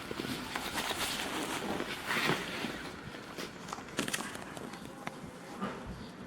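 Irregular rustling with scattered light clicks and a few louder knocks, like handling noise.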